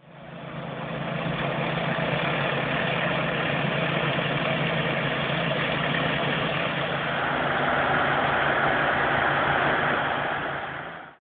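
Pressure washer running: a steady engine hum with the hiss of the water spray over it, fading in at the start and cutting off near the end.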